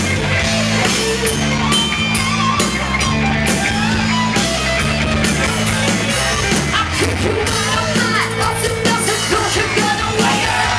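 Live rock band playing loud, with electric guitars, bass and drums, and a singer's voice, in the second half most clearly.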